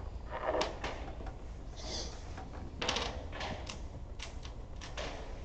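Dominoes clicking and knocking against each other and on a wooden table, in scattered short taps several times over.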